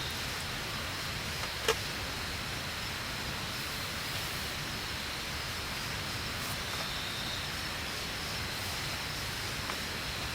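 Steady outdoor night ambience: an even hiss with a faint, steady high-pitched drone, broken by one sharp click a little under two seconds in and a much fainter tick near the end.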